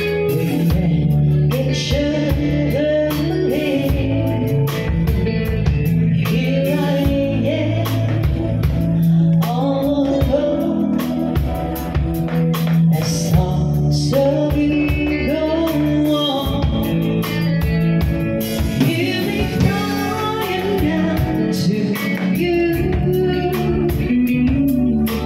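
Live band playing a song: a male and a female singer on microphones over electric guitar, drum kit and keyboard.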